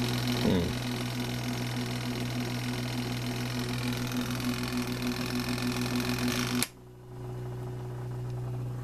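Arksen 11-lb portable washing machine running with a steady electric hum and whir as it is set to drain. About two-thirds of the way in, the whir cuts off abruptly and a quieter steady hum carries on.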